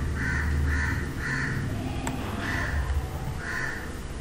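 A bird calling in short repeated calls, three about half a second apart, then two more about a second apart, over a low rumble. A single sharp click comes about two seconds in.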